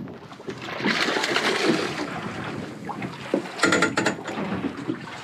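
A small red emperor splashing at the surface as it is reeled up beside the boat and lifted out of the water, with a short cluster of sharp clicks about three and a half seconds in.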